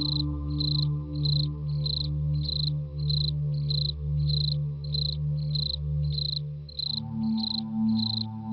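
Horror background ambience: a cricket chirping evenly, about one and a half chirps a second, over a low sustained droning chord that shifts to a new, higher pitch about seven seconds in.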